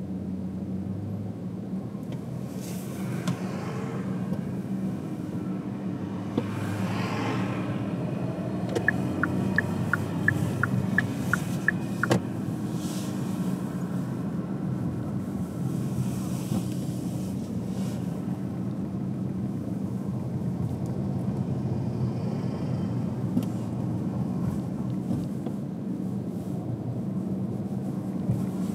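A car driving on city streets: a steady low hum of engine and tyres, with other vehicles swelling past a few times. About a third of the way through comes a quick run of about eight light ticks, then a single sharp click.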